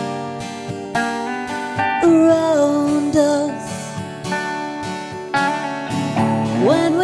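A folk trio playing live: an acoustic guitar with a capo strummed in a steady rhythm under a sung melody with a violin. Near the end the melody slides sharply up in pitch.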